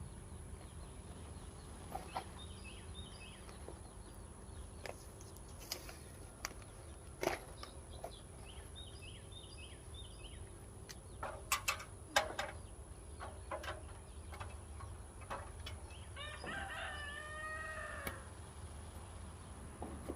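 Chickens clucking, and a rooster crowing once late on, one call of about a second and a half. Scattered sharp knocks and clatter come in between.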